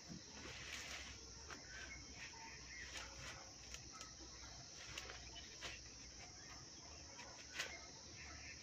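Steady high-pitched insect drone with scattered faint snaps and rustles of leafy branches being handled; one sharper snap comes near the end.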